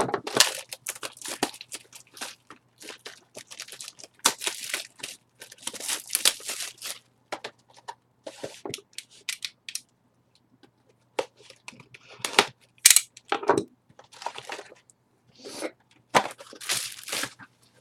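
Sealed boxes of trading cards being opened by hand: plastic wrap crinkling and tearing and cardboard being handled, in short irregular bursts with scattered clicks and taps.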